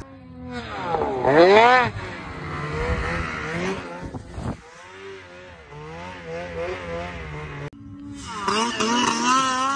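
Snowmobile engines revving as the sleds ride across snow, heard in a few short cuts. Near the start the pitch climbs steeply and falls away again. The middle holds a steadier drone, and the revs waver up and down near the end.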